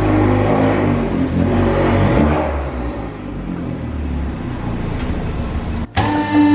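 Volkswagen Golf R's turbocharged 2.0-litre four-cylinder engine running and revving with a low rumble. Just before the end the sound drops out for a moment, and then a steady hum starts.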